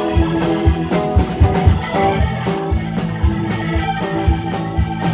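Live band playing an instrumental passage: electric guitar and organ over a steady drum beat, with kick-drum hits about twice a second.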